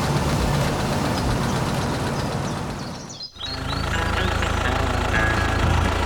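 Small engine running steadily. It cuts out for an instant about three seconds in, then comes back with a steadier low hum.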